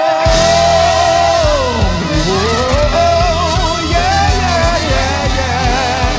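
Live gospel band playing, with drums and bass keeping a steady beat under a held, wavering lead line that dips sharply in pitch and climbs back about two seconds in.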